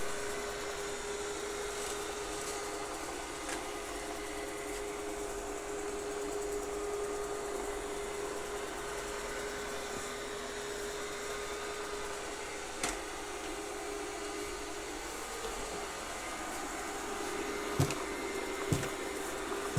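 Robot vacuum cleaner running with a steady motor hum and a constant whine, with a few short knocks, two of them about a second apart near the end.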